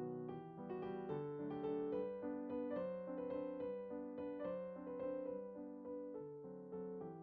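Background music: gentle solo piano, notes struck about twice a second and left to ring.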